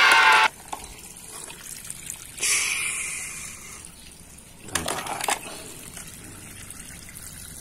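Water from a garden hose gushing in bursts: one lasting just over a second about two and a half seconds in, then brief spurts around five seconds. Before that, a loud high gliding tone cuts off about half a second in.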